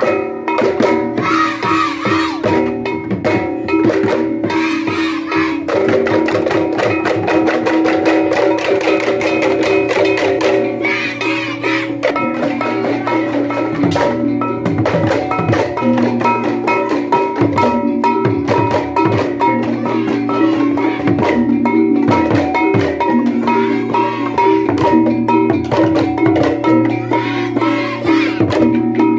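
Balinese tektekan ensemble: bamboo slit drums knocked in dense interlocking rhythms over sustained pitched tones, playing without a break.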